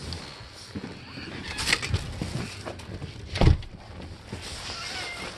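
Handling noises of someone going out through a door onto a snowy wooden deck: scattered clicks, rustling and crunching, with one heavier thump about three and a half seconds in.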